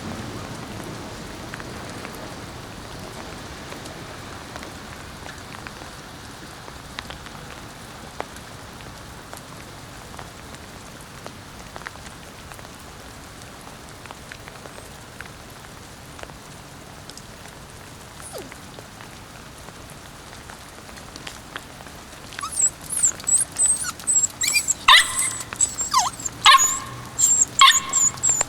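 A young Kishu Inu puppy barking in a rapid run of short, high-pitched calls, starting about three quarters of the way in. Before that only a steady hiss is heard.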